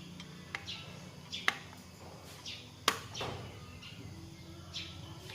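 A few sharp clicks or knocks over a low steady hum, the loudest just before three seconds in, with short high chirps now and then.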